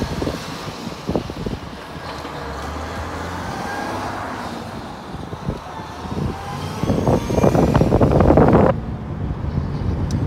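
Mack Cruiseliner semi tractor's diesel engine pulling away and accelerating hard onto the highway, heard from inside a nearby car over its own road noise. The truck is loudest in a fast-pulsing rumble from about seven seconds in, and this cuts off sharply just before the end.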